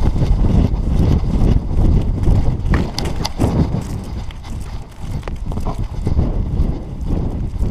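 Belgian Malinois galloping with a camera harnessed on its back: wind rumble on the microphone and rhythmic thuds of its running stride jolting the camera, with a few sharp clicks about three seconds in.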